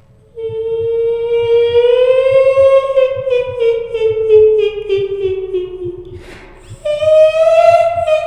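A woman's voice singing long, wordless notes. The first note rises and then slowly sinks; after a breath about six seconds in, a second, higher note begins. A faint low pulsing runs beneath.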